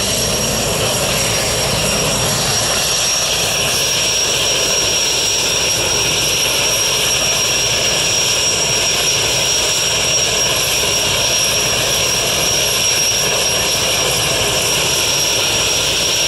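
Aircraft engine running steadily, a continuous drone with a steady high whine over it, typical of a jump plane at a skydiving drop zone.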